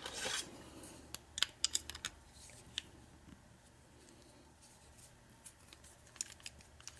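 Small sharp clicks and light metallic taps from handling an opened padlock and a hand tool. They come in a quick cluster during the first three seconds, fall mostly quiet, then a few come again near the end.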